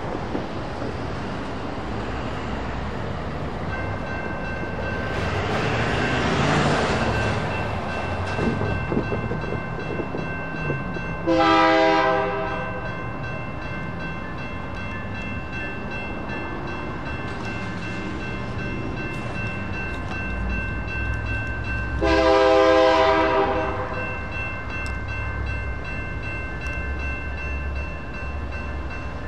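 A grade-crossing warning bell starts ringing steadily a few seconds in as the signals activate. An approaching train sounds its horn twice, each blast about a second or two long and about ten seconds apart, the loudest sounds here, over road traffic passing through the crossing.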